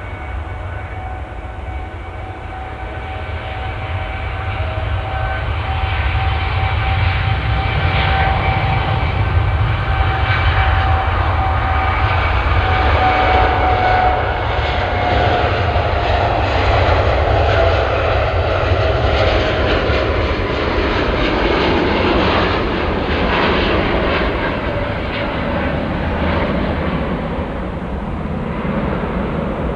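Jet airliner passing by: a heavy low rumble with a whining engine tone that grows louder, then drops in pitch about halfway through as the aircraft goes past.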